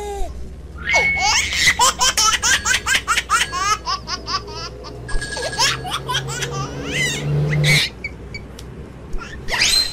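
Kids' educational game sounds from a tablet speaker: a quick string of cartoon giggles and chirpy gliding tones that stops abruptly about eight seconds in, followed near the end by a short burst of another kids' app's sounds.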